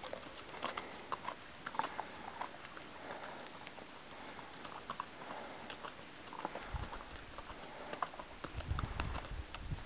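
Faint hoofbeats of a ridden horse walking on gravel, a scatter of small irregular clicks, with a few low rumbles near the end.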